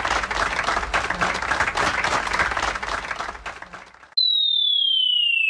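A dense crackling, clicking noise that fades away. About four seconds in it is cut off by a pure electronic tone that starts high and slides steadily down in pitch.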